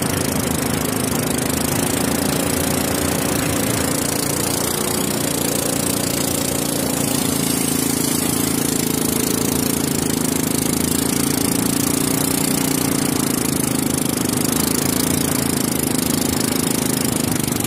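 A small river boat's engine running steadily while the boat is under way, with a broad rush of wind and water under it.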